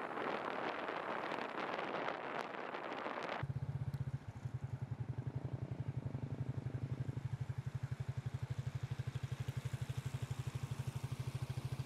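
A rushing noise for the first three and a half seconds, then after an abrupt change a motor vehicle's engine running steadily with a fast, even low throb.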